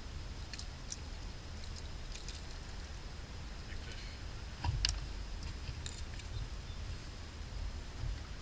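Faint clicks and taps from fishing tackle being handled, with one louder knock a little over halfway through, over a low steady rumble.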